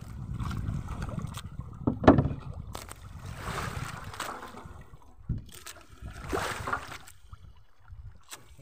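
Sea water splashing and sloshing against the side of a small outrigger boat, with wind rumbling on the microphone. A loud thump comes about two seconds in.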